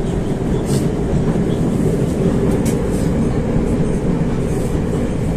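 Moscow 2.0 metro car running along the track, heard from inside the car: a steady loud rumble of wheels and running gear with a constant hum, and a few short high-pitched clicks or squeaks.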